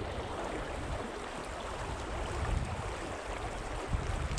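Steady rushing of a river flowing over rocks, with one light knock near the end.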